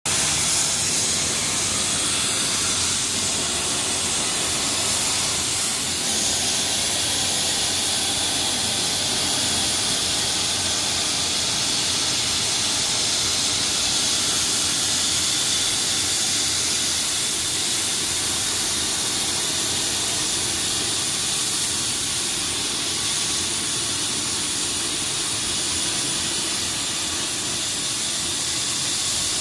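Cybertronic CNC plasma cutter's torch cutting through sheet metal: a steady, loud hiss of the plasma arc and cutting gas, strongest in the high range and without breaks.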